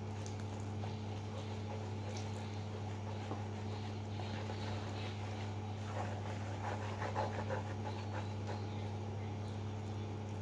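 A hand mixing flour and warm water into a batter in a plastic bowl: faint irregular rubbing and squishing, busiest about six to eight seconds in, over a steady low hum.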